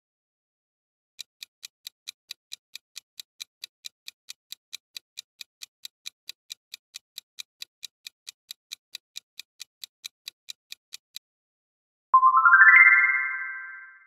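Countdown-timer ticking sound effect, sharp even ticks about four a second for about ten seconds, then a short rising chime that fades out, marking the answer reveal.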